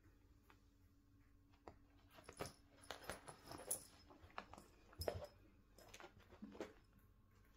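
Near silence with faint, scattered rustles and light taps, the loudest about five seconds in: a cat rolling on carpet and pawing at a catnip leaf.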